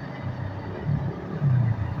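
Komatsu PC200 excavator's diesel engine running, swelling briefly louder about one and a half seconds in.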